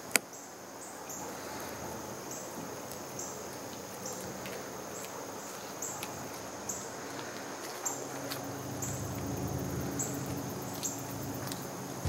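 Outdoor ambience: a steady hiss with a short high-pitched chirp repeating about once a second. A sharp click comes right at the start, and a low rumble builds in the last few seconds.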